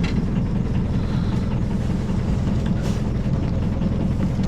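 A boat's motor running steadily, with one faint knock about three seconds in.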